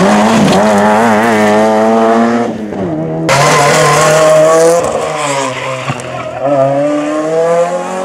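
Two Renault Clio rally cars' engines running hard. The first holds high revs through a bend, its note wavering. After an abrupt cut about three seconds in, a second car accelerates past, its engine note climbing, dropping briefly at a gear change and climbing again.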